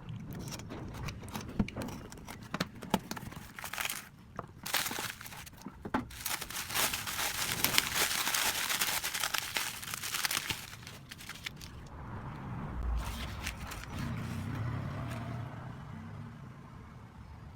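Packaging being opened around a replacement phone LCD screen: plastic crinkling and tearing, with scattered clicks at first and a long stretch of dense rustling in the middle.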